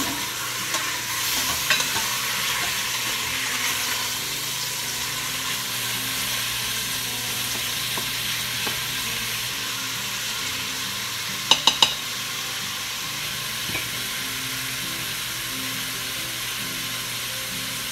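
Beef sausage and chicken pieces sizzling steadily as they brown in an Instant Pot's inner pot on the sauté setting, stirred with a silicone spatula. About two-thirds of the way through come three quick sharp clicks.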